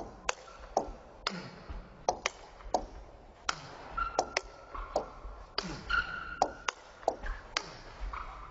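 Table tennis rally: the ball clicking sharply off the paddles and the table in quick alternation, about two hits a second. Short squeaks come between some of the hits.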